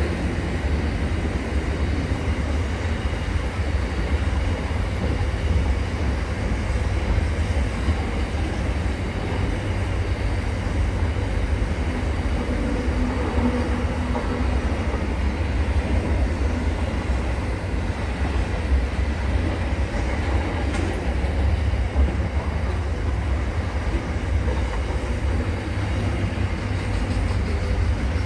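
Double-stacked container freight train rolling past, its wagons' wheels giving a steady, unbroken rumble on the rails.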